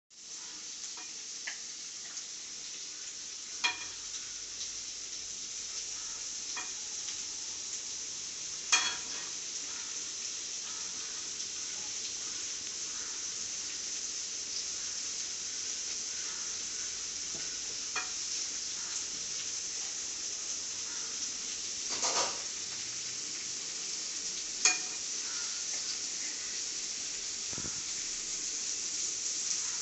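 Cabbage frying in a pan with a steady sizzle, with a few sharp clicks and scrapes of a stirring utensil against the pan.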